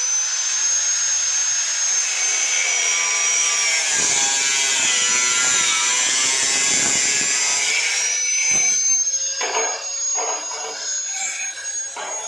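A handheld power tool spins up to a high, steady whine. From about four to eight seconds the pitch sags and the sound turns rougher as it bites into the work, then it climbs back to full speed.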